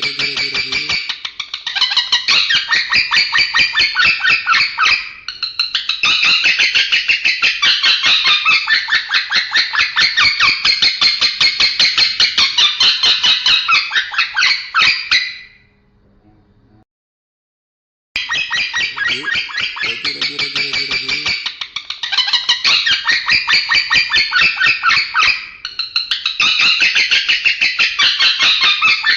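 Male lovebird singing a long, rapid chattering trill in extended unbroken bouts, an unusual, unclear-sounding song. It cuts out suddenly a little past halfway for about two seconds, then starts again.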